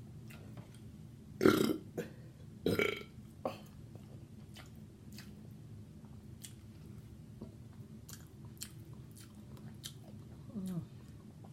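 A woman burping twice, loudly, about a second and a half in and again near three seconds, amid the small wet clicks of chewing food.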